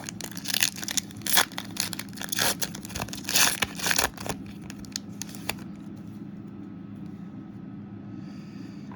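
Foil trading-card pack wrapper being torn open and crinkled: a quick run of sharp rips and rustles over the first five seconds or so, then stopping, leaving only a faint steady hum.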